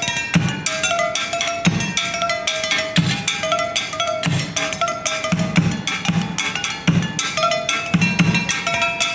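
Percussion ensemble playing a steady groove: low drum beats about every half second under fast sharp strokes and short repeated bell-like notes.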